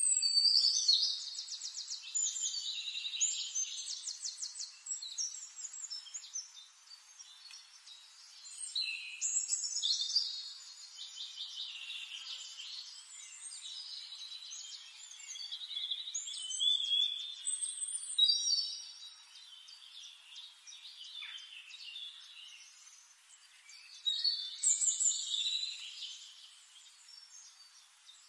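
Birdsong: several bursts of rapid, high trills and chirps, with quieter chirping between them.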